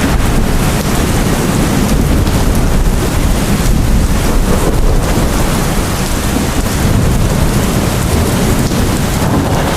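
Heavy rain pouring steadily, with a deep continuous rumble underneath.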